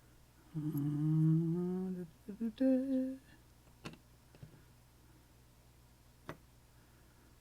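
A man humming a short wordless tune, a held note rising slightly and then a few short higher notes, for about three seconds. Two sharp clicks follow, about two and a half seconds apart.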